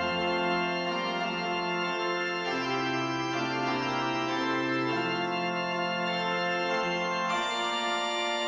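Organ music: sustained chords, held and changing every second or two.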